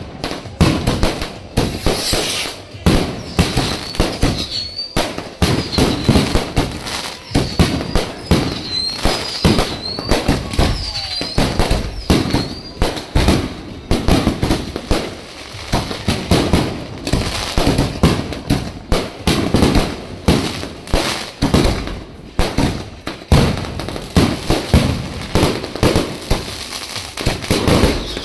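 Fireworks going off in a continuous rapid barrage: dense, irregular bangs and crackling from aerial bursts with no real pause.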